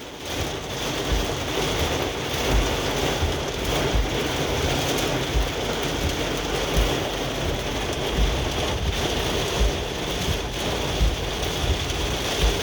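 Heavy wind-driven rain pelting a car's roof and windows, heard from inside the cabin, as a steady dense hiss with occasional low thumps.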